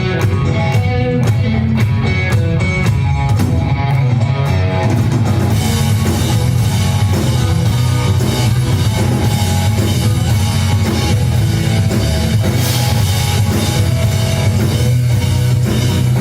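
Live rock band playing: guitar over a steady tick about twice a second, then the full drum kit with cymbals comes in about five and a half seconds in.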